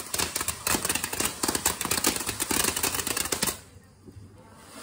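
Ground fountain firework crackling: a dense, rapid rattle of tiny pops from its glittering sparks, which stops abruptly about three and a half seconds in as the fountain burns out.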